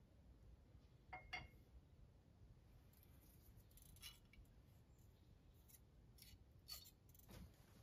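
Near silence with a handful of faint metallic clicks and light scrapes: a steel feeler gauge's blades being handled and slid under a straight edge across the deck of a Land Rover 2.25 petrol engine block, checking it for warping. The clearest clicks come about a second in.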